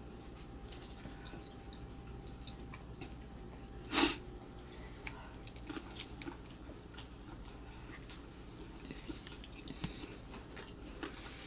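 Close mouth sounds of someone eating a shrimp boil: chewing and biting with many small wet clicks, and one louder noise about four seconds in.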